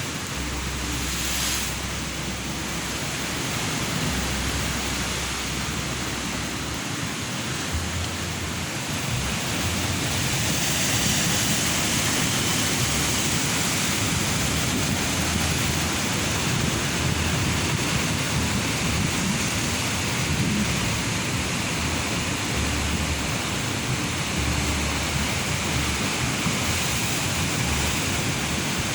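Ocean surf breaking and washing continuously, swelling slowly louder about a third of the way in, with wind buffeting the microphone in low rumbles.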